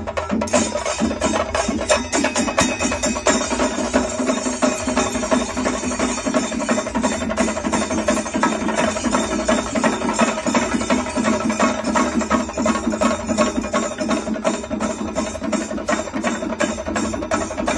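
Kerala chenda drum ensemble playing a fast, dense, unbroken rhythm with sticks, with brass hand cymbals (elathalam) clashing along in time.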